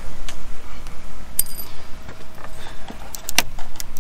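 A few sharp clicks and taps of small clips being handled and worked loose by hand in a car's engine bay. The loudest comes a little over three seconds in, over a steady low rumble.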